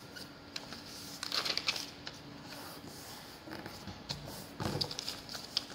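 Origami paper rustling and crinkling as hands fold and crease it against a table, in scattered taps and two short bursts, about a second and a half in and again near the end, over a faint steady hum.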